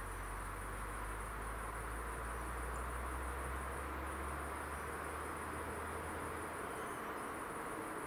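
Crickets trilling steadily in a high, rapid pulse, with brief breaks about four seconds in and near seven seconds, over a steady background hiss.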